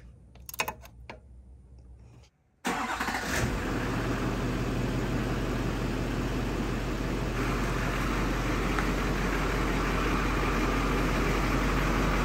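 Straight-piped Duramax LBZ 6.6-litre V8 turbo-diesel running at a steady idle. The sound comes in abruptly about three seconds in, after a few faint tool clicks.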